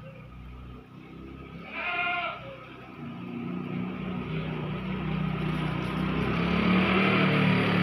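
A single short bleat about two seconds in, then a motor vehicle's engine drawing nearer and growing steadily louder.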